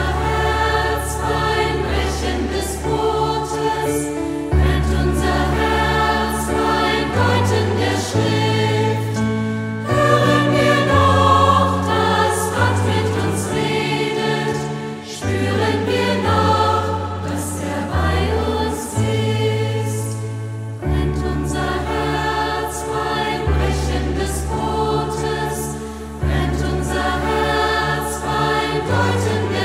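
A choir singing a German sacred song over instrumental accompaniment, with held bass notes that step to a new pitch every second or two.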